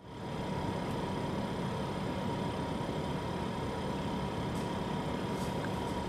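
IceCo VL90 ProD portable compressor fridge running, heard a few inches from its side vent: a steady hum with a thin, steady tone above it.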